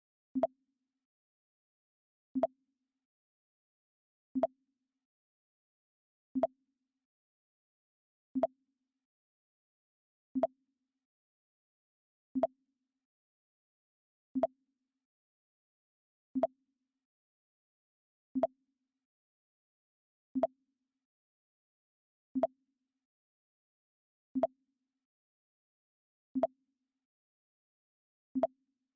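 Mac OS X 'Pong' alert sound, a short pong-like blip, played over and over about every two seconds with silence between.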